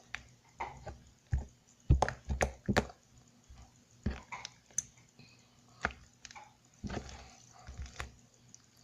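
Hands squishing and kneading chunky jelly cube slime, making irregular sticky clicks and squelches.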